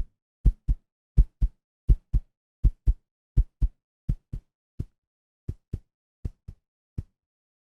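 Heartbeat sound effect: deep double thumps, lub-dub, at a steady pace of about 80 beats a minute, growing fainter in the second half, where a few beats come single.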